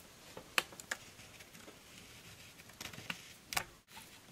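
Pencil tracing around the cut-outs of a stencil laid on a door hanger: faint scratching with a few light clicks, the sharpest a little over half a second in and about three and a half seconds in.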